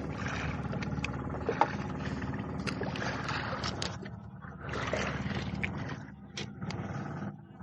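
A boat's engine running steadily, with water splashing against the hull and a few sharp knocks, the loudest about one and a half seconds in.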